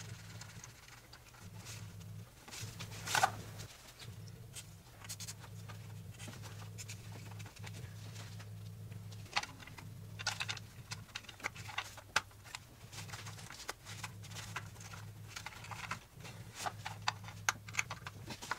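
Scattered clicks, taps and scrapes of a long metal screwdriver working against engine parts around a Vanos solenoid, with one louder scrape about three seconds in, over a low steady hum.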